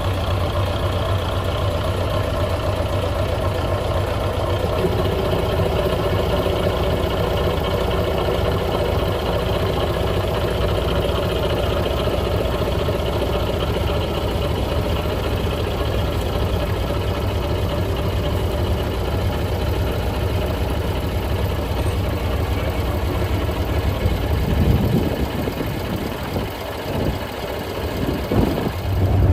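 The engine of a 1967 Scania Vabis LS 76 hot-rod truck idling steadily with a deep rumble. Over the last few seconds the low rumble drops away and the sound becomes uneven.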